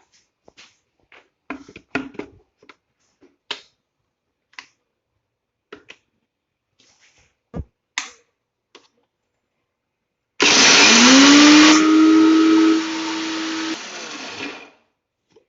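Scattered clicks and knocks, then about ten seconds in an electric mixer grinder starts with a rising whine, coarse-grinding chana dal. It runs about four seconds, dropping in level in two steps before it stops.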